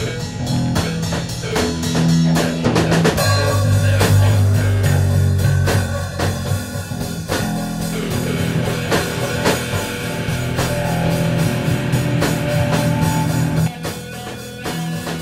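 Background rock music from a band, with a steady drum beat over sustained bass notes; it drops back briefly near the end.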